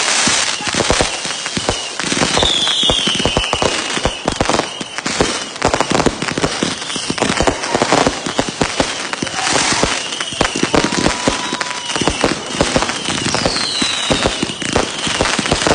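A finale board of fused 200 g and 500 g firework cakes firing continuously: rapid, overlapping bangs and crackle with no break, and a few whistles that fall in pitch.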